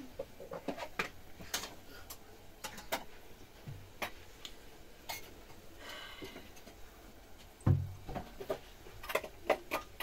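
Scattered light clicks and knocks at an irregular pace, like objects or utensils being handled, with one heavier thump late on.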